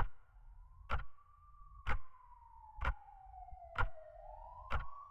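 Intro of an electronic music track: a siren wail slowly falls and then rises in pitch over sharp drum hits about once a second.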